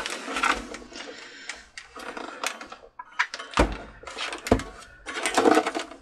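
Plastic housing of a Cricut Expression cutting machine being handled and shifted on a workbench: irregular clicks, rattles and knocks of plastic, with two dull thumps about three and a half and four and a half seconds in.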